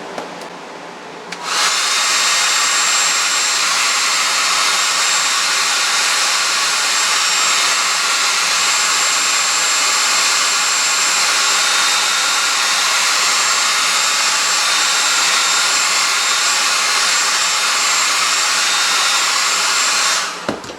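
Handheld hair dryer blowing at full power, a steady rush of air with a thin high whine. It comes on about a second and a half in and shuts off sharply just before the end.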